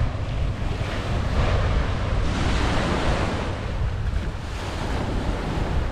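Small waves washing onto a sandy beach, with wind buffeting the microphone; the surf swells a little about halfway through.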